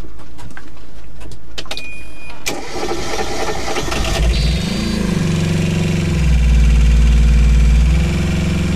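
Nanni marine diesel engine cranked on its starter after a few clicks, catching about four seconds in. Its note flares up and settles into a steady run, and it runs louder for a couple of seconds past the middle.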